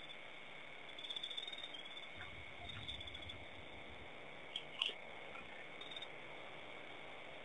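Night insect chorus, a steady high chirring like crickets, with a soft low rumble a couple of seconds in and a few sharp clicks a little past the middle.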